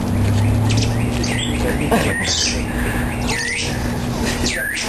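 Birds calling: several short, squawky calls that sweep up and down in pitch, over a steady low hum.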